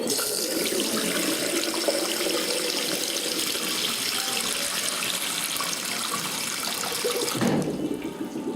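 Water rushing through a toilet's cistern and bowl, starting abruptly and dying away after about seven and a half seconds.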